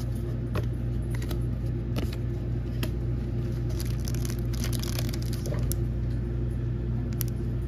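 Pokémon trading cards and a foil booster pack being handled: light clicks, rustles and foil crinkles, thickest around the middle. A steady low hum runs underneath.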